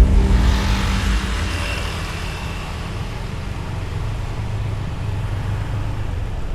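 Motor vehicle running, a steady low rumble with road hiss that eases off over the first two seconds.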